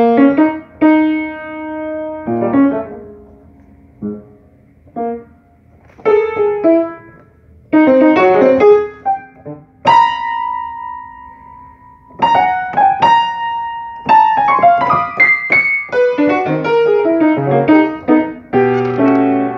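Solo piano: chords and short melodic phrases with brief pauses between them, the notes left to ring. The playing grows busier and more continuous about twelve seconds in.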